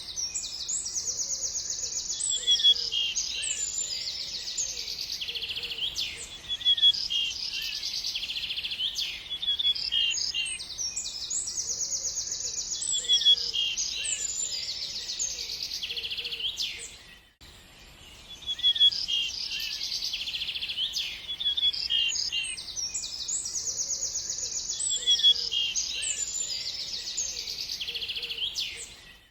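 Several songbirds chirping and trilling at once, with many quick overlapping calls and rapid trills. A little past the middle the sound drops out for a moment, and the same stretch of birdsong starts over.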